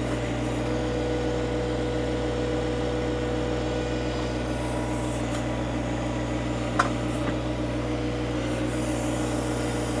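John Deere 1025R sub-compact tractor's three-cylinder diesel engine running steadily under hydraulic load while the backhoe slowly works to pull a tree's root ball. A steady whine sits over the engine for the first half, and there is a single click just before the seven-second mark.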